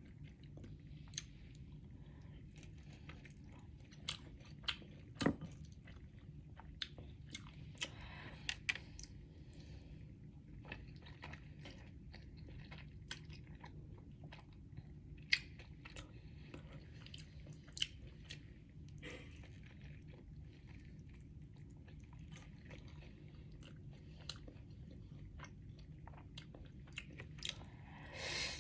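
Close-up chewing and eating of Samyang carbonara instant noodles, with scattered sharp mouth and utensil clicks over a steady low hum.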